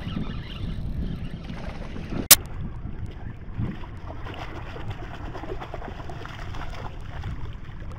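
Wind on the microphone and water lapping at a kayak while a hooked speckled trout thrashes and splashes at the surface. A single sharp click about two seconds in is the loudest sound.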